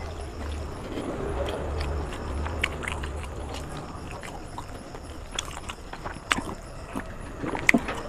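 Chewing and mouth sounds from eating a chicken leg piece and biryani by hand: wet smacking clicks scattered throughout, with the loudest ones near the end, over a low hum.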